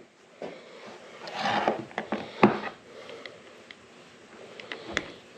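Handling noise: a short rustle and several scattered light clicks and knocks as a grease gun's hose and metal coupler are picked up and moved about on a wooden workbench. The sharpest knock comes about two and a half seconds in.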